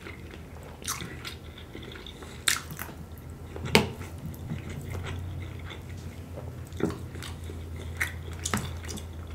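Close-miked chewing of jerk chicken and shrimp, with scattered sharp clicks and smacks from the mouth and the plastic fork in the takeout tray, over a low steady hum.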